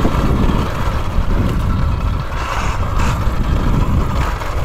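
2020 KTM Freeride E-XC electric dirt bike being ridden on a dirt trail: a steady low rumble of tyres and wind, with a faint motor and gear whine and no engine sound.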